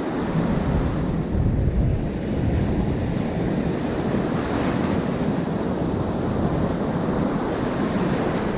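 Surf breaking and washing up a sandy beach, with wind rumbling on the microphone, loudest about a second or two in.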